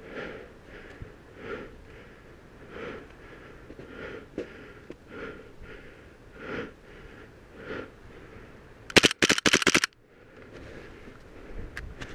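Airsoft Desert Eagle gas pistol firing on full auto: one rapid burst of about a second, about nine seconds in. Before it, soft puffs come at an even walking pace.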